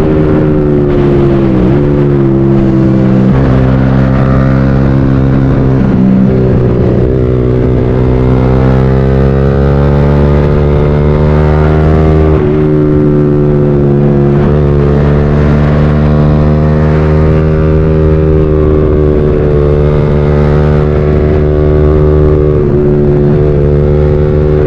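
Motorcycle engine pulling steadily while riding, heard loud and close. Its pitch holds fairly even and dips briefly a few times, as when the throttle is eased or a gear is changed.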